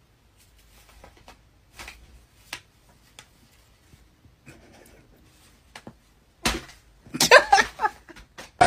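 Faint rustling and soft taps of bedding as a cat paws a pillow onto another cat. About six and a half seconds in there is a sudden thump, followed by a short, loud, wavering voice sound.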